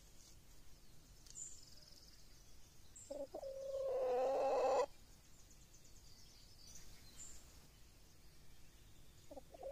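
A hen calling: one drawn-out call about three seconds in that grows louder for nearly two seconds, then a shorter call starting near the end. Faint chirps of wild birds in the background.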